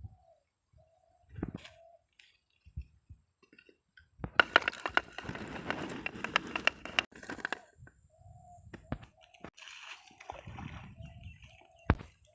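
Short bird calls repeated at intervals, all at much the same pitch. Midway comes a loud stretch of about three seconds of rustling, scraping noise with many sharp clicks, and there is a single sharp knock near the end.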